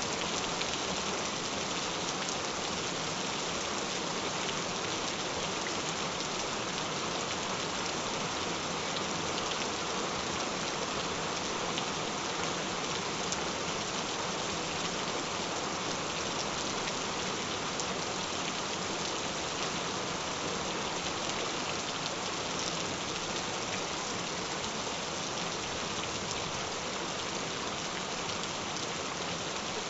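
Gentle rain falling steadily: an even hiss with the patter of separate drops.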